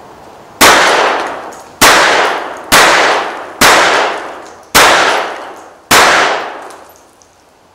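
Six shots from a Colt Model 1908 pocket pistol in .25 ACP, fired about a second apart. Each shot trails off in a long echo.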